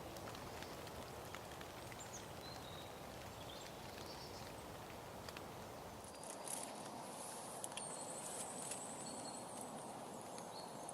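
Faint woodland ambience with small birds giving short, thin, high calls. From about six seconds in, there are very high, rapid trilling calls.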